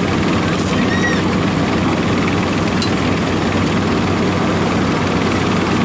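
Engine of a small tracked rice-sack carrier running steadily with an even, low, thumping hum.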